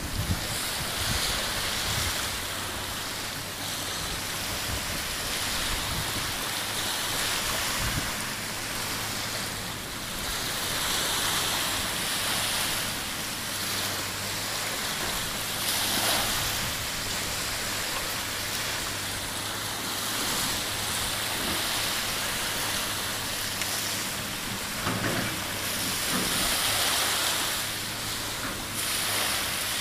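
Steady rushing of surf washing on a sandy beach, swelling every few seconds, over a low steady hum.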